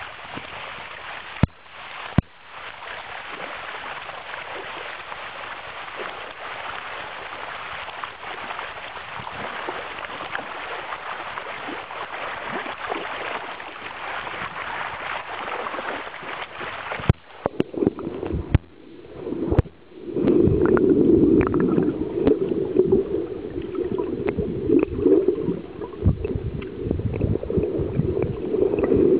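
Water splashing and churning as a dense mass of spawning salmon thrash in the shallows. About two-thirds through, the sound turns muffled and gurgling, heard from under the water among the fish.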